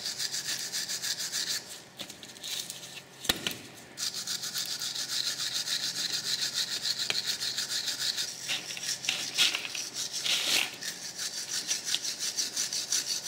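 Hand wire brush scrubbing a steel brake caliper carrier bracket in quick back-and-forth scratchy strokes, several a second, cleaning dirt and corrosion off the pad-shim seats and hub mounting faces. There is a brief pause with a single knock about three seconds in.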